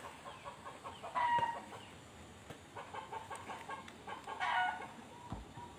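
Chickens clucking in a few short calls, about a second in and again past four seconds.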